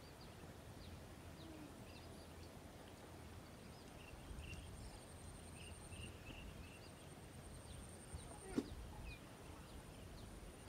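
Faint outdoor ambience: a steady high insect drone with scattered small bird chirps over a low background rumble. One sharp click or snap about eight and a half seconds in.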